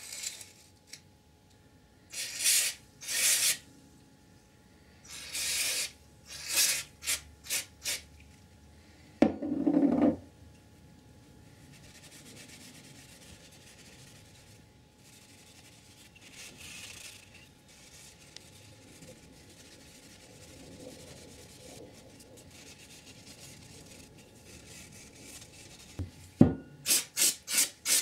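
Old grease being scrubbed and wiped off a dirt bike's shock linkage parts: bursts of rubbing strokes, then a fast run of about three strokes a second near the end. A short dull thump about ten seconds in.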